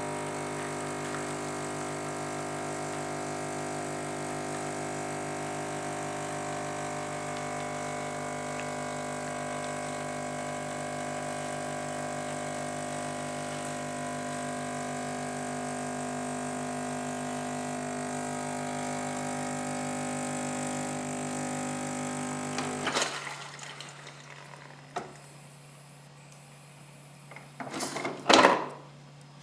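Saeco Via Torretta 240 capsule coffee machine's pump running steadily as it brews, a constant hum with many overtones that cuts off suddenly about 23 seconds in. A few clicks and a louder clack follow near the end.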